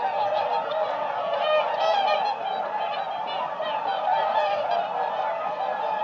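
A flock of swans honking, many calls overlapping into a dense, continuous chorus.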